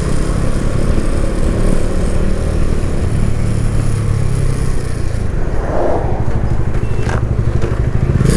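Motorcycle engine running steadily under way, with a rush of wind and road noise that eases about five seconds in.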